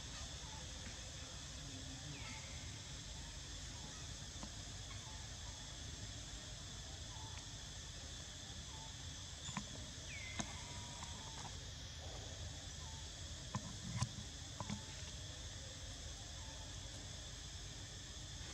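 Steady high-pitched chorus of insects, with a couple of short falling chirps and a few sharp clicks partway through.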